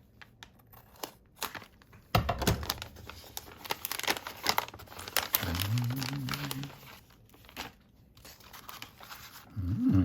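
Sticker packaging crinkling and rustling with sharp crackles as it is opened and the stickers are pulled out and handled.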